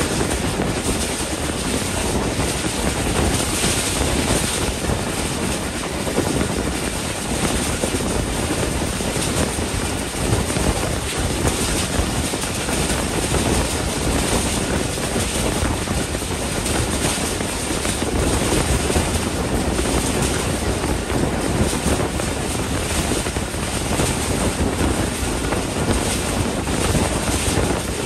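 Passenger train running at speed, heard from an open coach doorway: a steady rumble of wheels on the rails mixed with wind rushing past the microphone.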